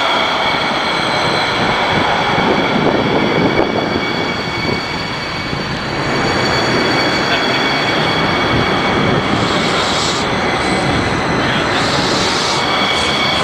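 Hudson-Bergen Light Rail car (Kinki Sharyo light rail vehicle) running past close by: a steady loud rumble of wheels on rail with a thin high whine held above it.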